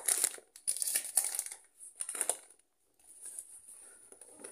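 Crinkling and rustling of plastic packaging and a shopping bag being handled: a few short bursts in the first two and a half seconds, then fainter rummaging.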